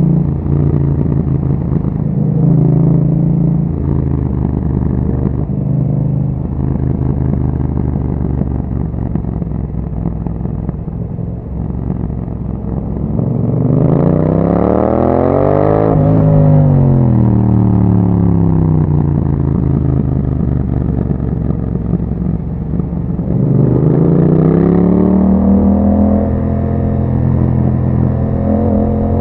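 Yamaha MT-07's 689 cc parallel-twin engine running through an Akrapovic exhaust with dB killer on the move. It holds steady at first, then the revs climb and fall off about halfway through, and climb and fall again near the end.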